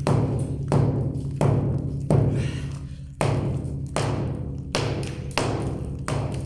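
Cement-sand floor screed being struck repeatedly with a hand tool to chip it off the slab: about nine blows at a steady pace, each ringing low for a moment.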